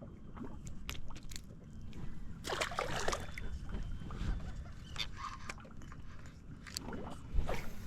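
Water lapping and slapping against a small fishing boat's hull over a steady low rumble, with a few brief sharp knocks or splashes, the biggest about two and a half seconds in and again near the end.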